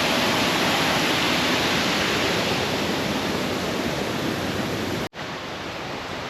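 Rushing water: a steady, loud hiss. It cuts off suddenly about five seconds in and goes on more quietly.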